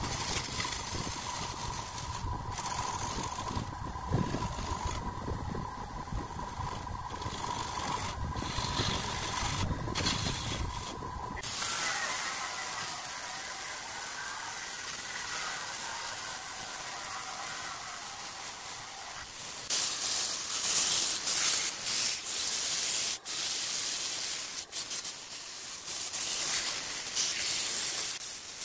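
Woodturning workshop machinery heard in three abrupt sections. First a machine runs with a low rumble and a steady whine. About eleven seconds in, a long even hiss replaces it. Near the middle, a brighter, harsher hiss broken by short clicks takes over.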